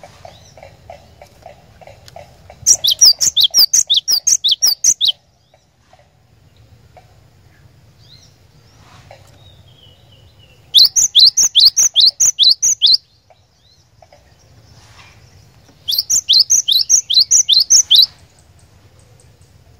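Cinereous tit (glatik batu) singing in three quick bursts, each of about ten rapid down-slurred whistled notes lasting a little over two seconds, with pauses of several seconds between.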